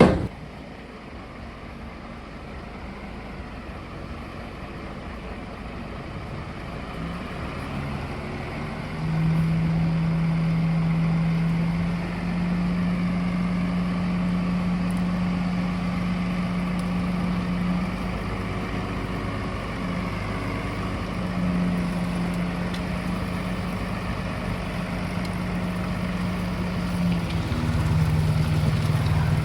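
Heavy diesel engine running steadily. It grows louder about a quarter of the way in and steps up and down in pitch a few times, with a short sharp knock at the very start.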